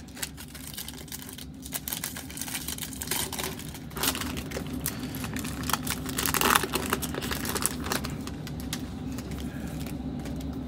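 Foil wrapper of a Prizm basketball card pack crinkling and tearing open by hand: dense crackling with quick clicks, busiest about six seconds in.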